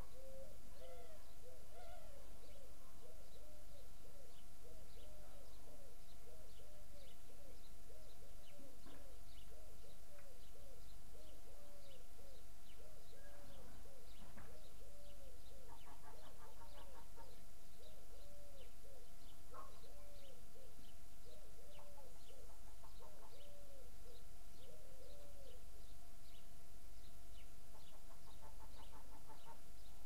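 A dove calling a long series of low, identical coos, about one a second, stopping a few seconds before the end. Faint high chirps from small birds run underneath.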